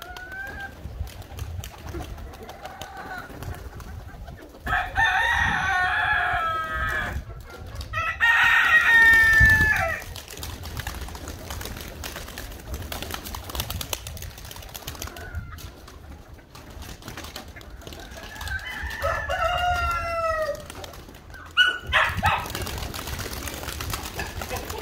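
Roosters crowing: two long crows back to back about five and eight seconds in, the second the loudest, and another crow about three-quarters of the way through. A short burst of pigeon wings flapping follows near the end.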